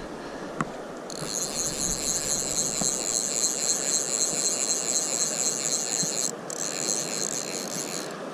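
Fly reel whirring with a fast, even ripple while a hooked fish is played. It starts about a second in and breaks off briefly near the end, over a steady hiss of river and wind.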